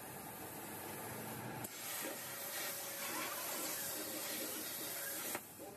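CNC plasma cutting torch on a gantry table. It starts about a second and a half in with a click, hisses steadily as it cuts through the steel sheet, then cuts off abruptly near the end.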